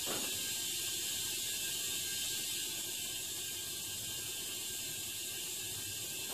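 Compressed air hissing steadily from an air line into the mower tyre, inflating it to seat the bead.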